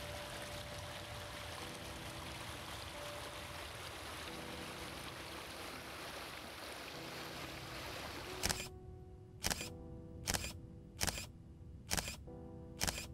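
Stream water running over rocks under soft background music. About eight seconds in the water sound cuts out, and a camera shutter clicks six times, roughly once a second, over the music.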